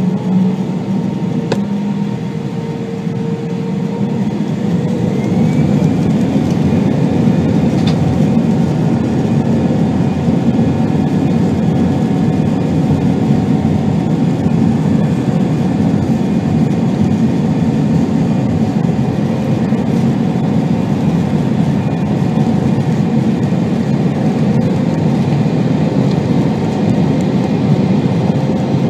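Airbus A320-214 jet engines (CFM56-5B) spooling up to takeoff thrust, heard inside the cabin over the wing. Rising whining tones and growing loudness in the first few seconds give way to a steady loud engine noise with runway rumble through the takeoff roll, up to lift-off near the end.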